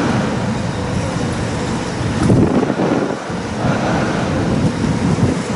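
Wind buffeting the microphone over a steady low rumble and a faint hum from the berthed ferry's machinery.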